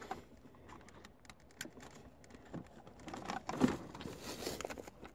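Faint, scattered small plastic clicks and rubbing from fingers pressing the release tab and wiggling a wiring-harness connector behind a car's dashboard trim, with a slightly louder knock about three and a half seconds in.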